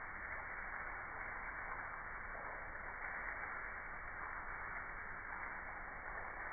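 Water falling steadily from a square ceiling-mounted Jaquar rain shower head.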